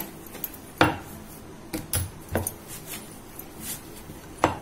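A wooden rolling pin rolling out a stiff dough on a wooden board, with a few sharp knocks of wood on wood. The loudest knocks come about a second in and near the end.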